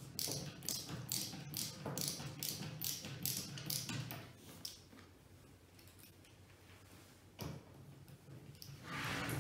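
Hand screwdriver turning a screw into a flat-pack drawer panel: a run of short clicks, about three a second, for the first four seconds or so, then fading. A single knock follows later, and a brief soft noise comes near the end.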